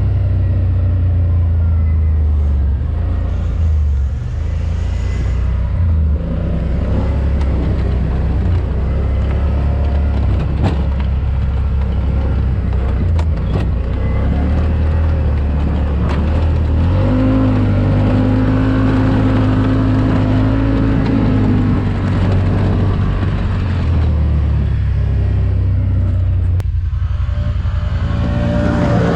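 ATV engine running while riding, its pitch stepping up and down with the throttle, with wind rumbling on the microphone.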